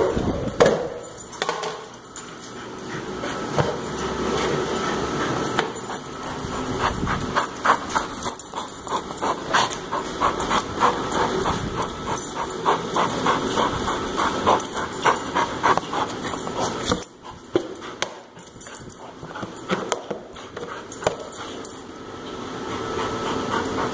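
A dog making noises while it plays with a plastic frisbee on a concrete floor, mixed with many quick clicks and scrapes.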